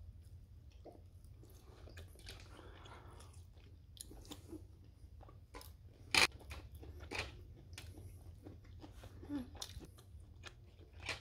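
A person chewing and biting food, with scattered crunches and short clicks, the sharpest about six seconds in.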